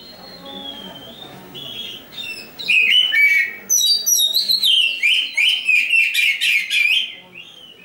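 A black-breasted Oriental magpie-robin singing: soft, scattered phrases at first, then from about two and a half seconds in a loud burst of rapid, varied whistles and warbles that runs until near the end.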